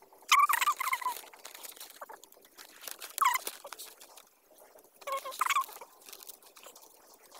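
Thin bamboo strips clicking and rustling as they are pushed into place by hand while weaving amakan bamboo matting. Three short pitched animal calls stand out, each about half a second long.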